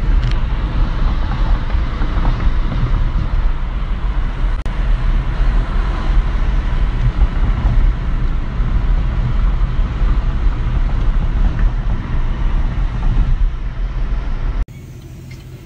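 Steady road and wind noise inside a moving car, a heavy low rumble under a hiss. It cuts off abruptly near the end to a much quieter sound.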